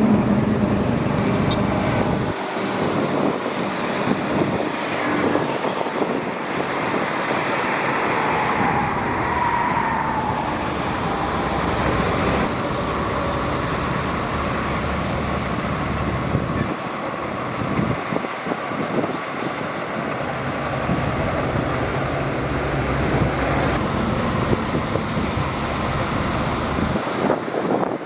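Shantui DH17C2 bulldozer working, pushing sand: its diesel engine running steadily under load along with the clatter of its tracks, easing off briefly a few times.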